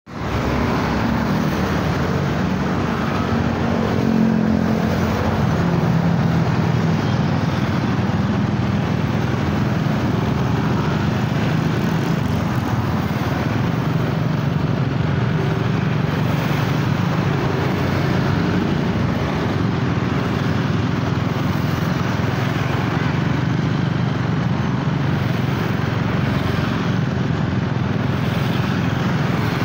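Motorcycle engine running steadily while riding along in traffic, with a steady rush of wind and road noise and the engines of the surrounding motorcycles.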